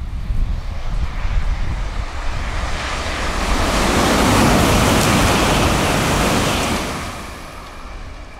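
N700-series Shinkansen passing through the station at very high speed: a rushing roar that builds over a few seconds, is loudest as the train goes by, and falls away quickly near the end, over low wind rumble on the microphone.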